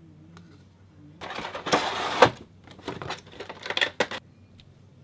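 Figure packaging being handled: a second or so of rustling and scraping about a second in, then a run of quick clicks and rattles that stops a little after four seconds.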